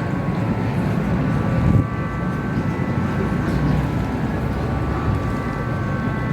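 A steady low rumbling drone with a few faint, steady whining tones above it.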